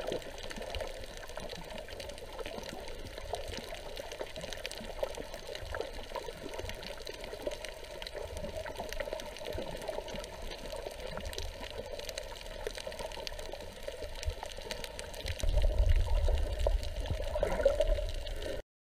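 Water heard through a camera recording underwater on a coral reef: a steady muffled hiss with many small clicks. About three seconds before the end a louder low rumble comes in, and the sound cuts off suddenly.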